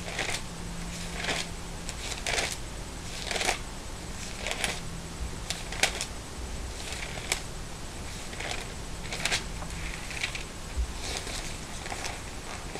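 Pages of a Bible being leafed through: a string of short, irregular papery swishes and rustles.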